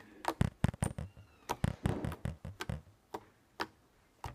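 Non-sticky slime being poked and pressed with fingertips, giving a quick, irregular run of sharp pops and clicks, the "pokey noises", that thins out to a few spaced-out pops near the end.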